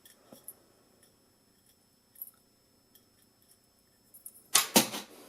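Faint, sparse clicks and taps of the plastic toy handcuffs being handled and touched with a screwdriver, then a brief louder burst of noise near the end.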